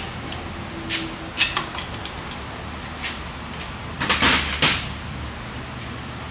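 Scattered metal clicks and knocks of tools and parts being handled, then about four seconds in a louder sliding clatter, typical of a steel rolling tool chest drawer being pulled open and pushed shut.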